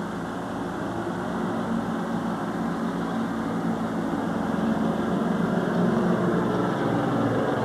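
A steady low mechanical drone, like an engine running, slowly growing louder.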